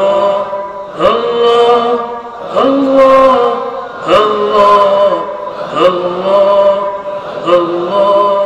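A man's voice chanting a devotional Sufi dhikr through a microphone and PA, in drawn-out, sliding phrases that repeat about every one and a half seconds.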